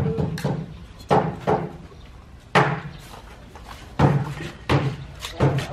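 A series of about eight sharp knocks at irregular intervals, each with a short decaying ring, from work on a construction site.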